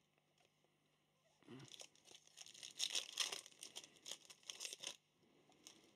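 Foil wrapper of a Prizm Breakaway trading card pack being torn open and crinkled by hand. The crackly rustling starts about a second and a half in and stops about five seconds in.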